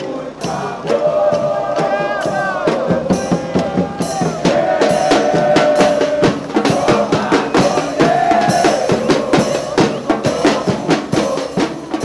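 Music with a steady drum beat under a sung melody.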